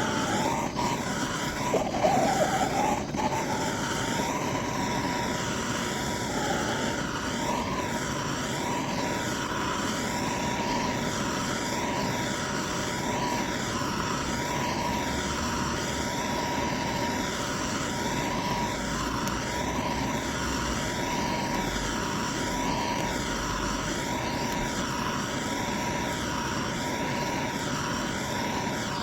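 Steady mechanical drone of a running vehicle, with a few sharp knocks in the first three seconds and a constant whine underneath.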